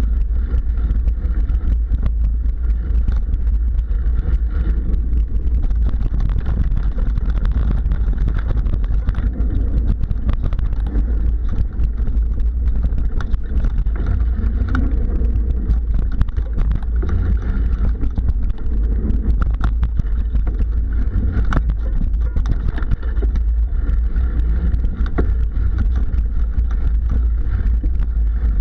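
Mountain bike rolling fast over a dirt singletrack, heard through a bike-mounted camera: a steady deep rumble of wind and vibration on the microphone, with frequent small clicks and rattles from the bike over the rough ground.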